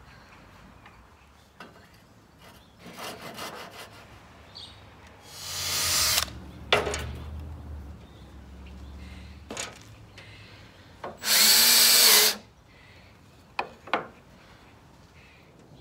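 Cordless drill run in two short bursts into wood: the first rises to speed about five seconds in, the second is a steady run of a little over a second about eleven seconds in. Clicks and knocks of tool handling come between them.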